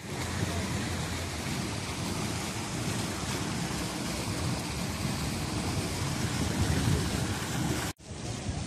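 Steady rush of fountain water splashing into a stone pool, with wind buffeting the microphone. The sound drops out for a moment near the end.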